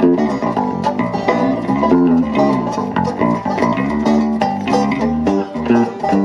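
Live country band playing an instrumental passage on five-string banjo, acoustic guitar and electric guitar, with quick picked notes running throughout.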